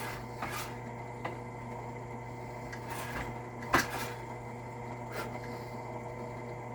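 Scattered clicks and knocks of a shotshell reloading press as a shell is run through the six-point crimp stage, the sharpest knock about four seconds in, over a steady hum.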